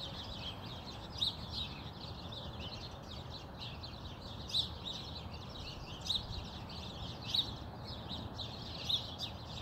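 Small birds chirping in a continuous chatter, with louder chirps standing out every second or two, over a steady low rumble of background noise.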